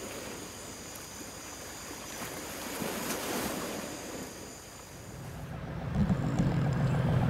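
Ocean waves washing on the shore at night, a steady soft hiss. From about six seconds in, a louder low rumble of wind on the microphone comes in.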